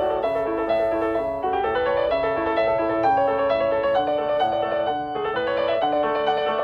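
Background piano music: a gentle melody of steady held notes and chords.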